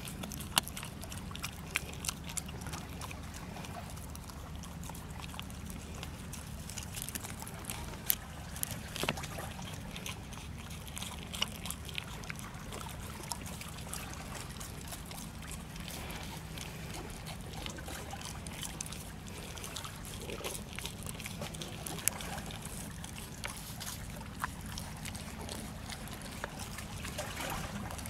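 Four-month-old pit bull puppy chewing dried carcass with her mouth open: wet smacking with irregular sharp crunches and clicks, over a steady low background rumble.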